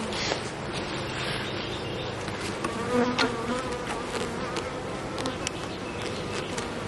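Honeybees buzzing over an opened hive: a steady hum of many bees.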